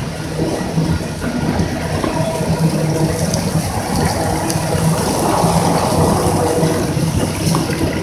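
Fountain water jets splashing and gushing into a shallow pool, with a steady low hum underneath.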